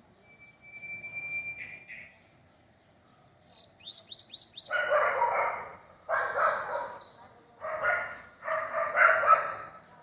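Bananaquits (sibites) singing: a thin whistle, then a rapid, high-pitched trill of repeated notes ending in quick falling sweeps. From about halfway through come four harsh, noisy bursts of about a second each.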